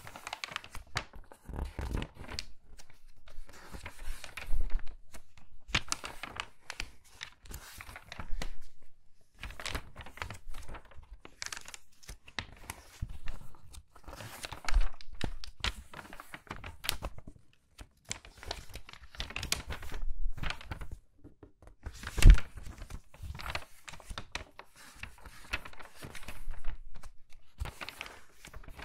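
Crinkly magazine pages turned quickly by hand, a page every second or two, each turn a short burst of crackling paper. About three-quarters of the way through, one sharp flick stands out as the loudest.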